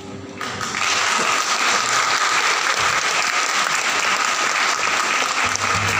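Audience applauding, breaking out about half a second in as the choir's last note dies away, then holding steady.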